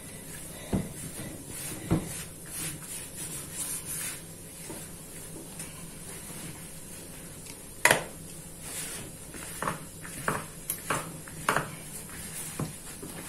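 Gloved hands kneading and pressing crumbly sablé cookie dough in a plastic bowl, with scattered knocks and thumps against the bowl. The loudest knock comes about eight seconds in, and a few quick ones follow near the end.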